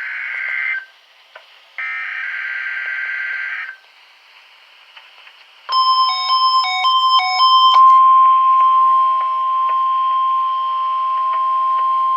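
NOAA Weather Radio test broadcast. It starts with the end of one buzzy SAME digital header burst and a second burst about two seconds long. After a pause comes a couple of seconds of stepping electronic beeps, then the steady 1050 Hz warning alarm tone, which holds on.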